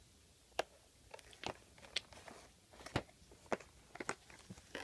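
A plastic-and-card toy package crackling and clicking under small hands prying at it to get the toy out. It gives a string of separate sharp snaps, the loudest about three seconds in.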